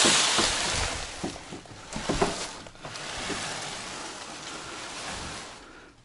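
Rushing noise, loudest at the start and fading away, with scattered knocks and clatter from someone moving about a wooden shed.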